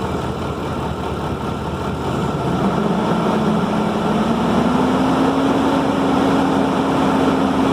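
2005 Ford F-150 engine running and brought up from idle to a higher idle: its pitch climbs from about two and a half seconds in, then holds steady. At the higher speed the ignition coils fail to spark, which the technician puts down to bad coils causing a misfire.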